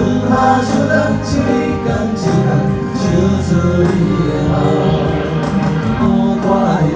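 A song with singing over instrumental backing, from a recording of street performers.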